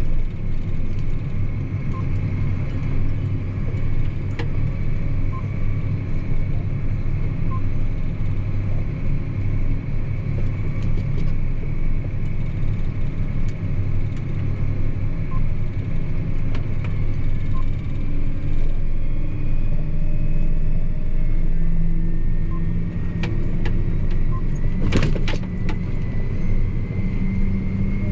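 John Deere 8245R tractor heard from inside the cab while hauling a loaded trailer on the road: a steady, loud diesel engine drone with a thin whine from the driveline. The engine note steps slightly higher in the second half, and there is a brief rattle of knocks near the end.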